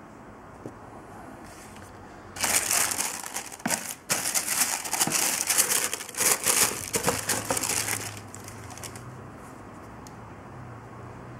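Tissue paper wrapping in a shoebox crinkling and rustling as hands pull it back from a pair of suede slippers. It starts about two seconds in and stops about eight seconds in.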